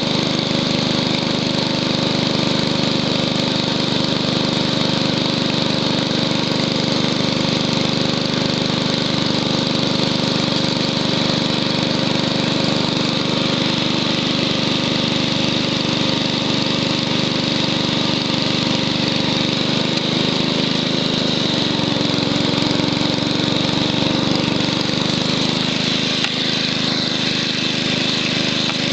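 1967 Wheel Horse Lawn Ranger's 6 HP Tecumseh single-cylinder engine running steadily under load, driving the STR-324 snowthrower as it throws snow. The engine note shifts briefly about twenty seconds in, then settles again.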